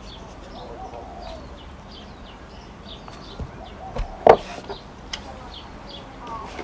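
Small birds chirping over and over in short high notes, over a low steady rumble, with one brief loud sound about four seconds in.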